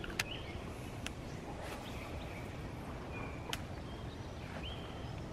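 Quiet outdoor background: a low steady rumble with scattered short, faint bird chirps and three light sharp clicks.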